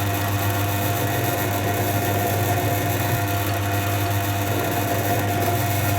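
ZJ4113 bench drill press motor running with a steady hum, the spindle turning freely with the bit through the metal.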